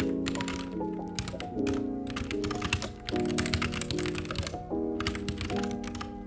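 Lofi background music with chords changing every second or so, under runs of quick keystrokes on a computer keyboard.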